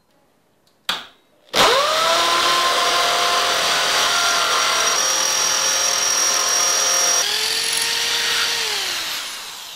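Electric drill boring a 3/8-inch hole through rusty square steel tubing. After a brief burst about a second in, the motor spins up and runs steadily, then falls in pitch and fades as it winds down near the end.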